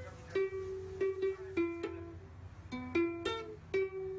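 Kamaka ukulele being strummed and plucked: a series of chords and single notes at an uneven pace, each ringing briefly before the next.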